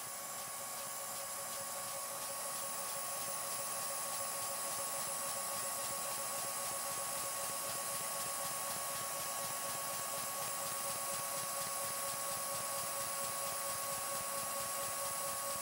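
Vacuum cleaner running with a steady whine and a rush of air, its suction drawn through a LEGO Technic oscillating-piston vacuum engine as the engine's flywheel spins up. The rush grows a little louder over the first few seconds, then holds steady.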